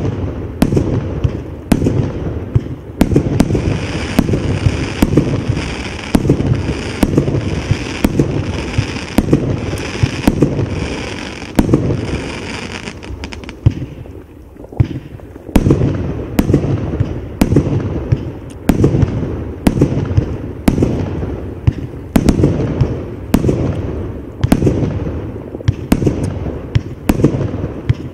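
Absolute Fireworks 'Rolling Thunder' 150-shot, 30 mm firework cake firing shot after shot, its shells banging about one to two a second. The bangs lull for about two seconds midway, then resume. The overlay rates it 5/5 for noise.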